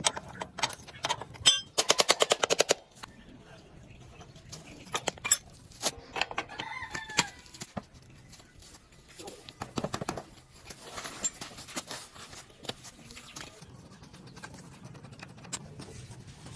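Metal hand tools and wheel parts working on a Yamaha RX100's rear wheel: a quick run of about a dozen loud metallic clicks about two seconds in, then scattered clinks and knocks as the axle nut, wheel and brake plate come off. A chicken calls briefly in the background about seven seconds in.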